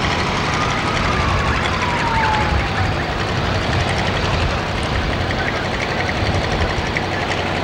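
The exposed engine of a stripped-down homemade parade vehicle running as it rolls past, a steady low rumble. A fainter siren-like tone slides down in pitch over about two seconds near the start.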